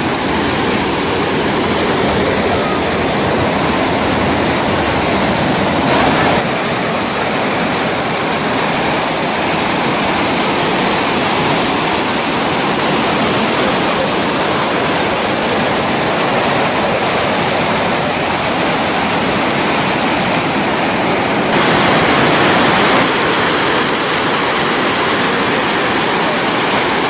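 Water rushing and splashing over a rocky cascade of white water, a loud, steady noise that shifts in tone twice: about a quarter of the way in and again near the end.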